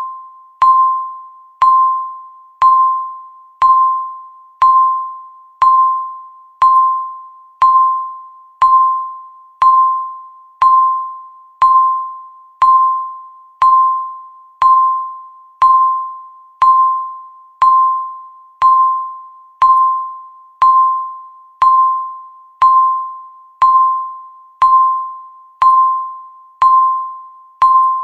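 Countdown timer beeping once a second: each beep is a sharp, bell-like tone of one pitch that fades away before the next, about 28 in all.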